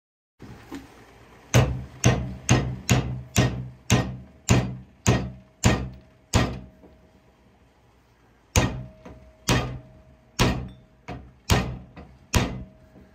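Claw hammer striking a glass test tube wrapped in a paper towel: about ten quick blows at roughly two a second, a pause, then about six more, and the tube does not break. A faint ringing tone hangs on between some of the blows.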